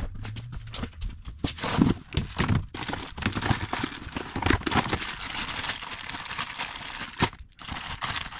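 A clear plastic bag crinkling and rustling as it is handled, among parts in a plastic storage box, with irregular light knocks and clicks.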